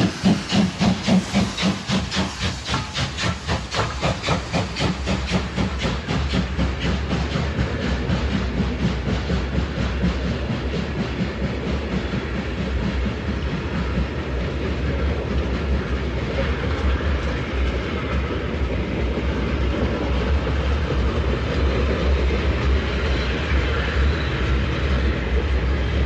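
Steam locomotive sound: rhythmic exhaust chuffs, about three to four a second at first, quickening and fading away over the first several seconds, then a steady rolling rumble with hiss.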